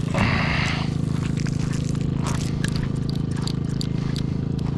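A steady low engine-like hum of even pitch, with a short hissing swish in the first second and a few faint clicks scattered through.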